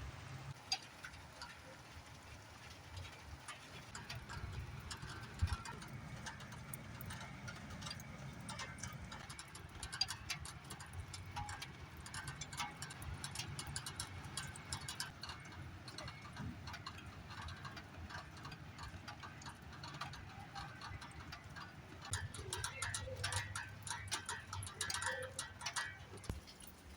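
Gusty storm wind with a low rumble, overlaid by many small scattered ticks and taps and a few sharper knocks. The wind swells a little near the end.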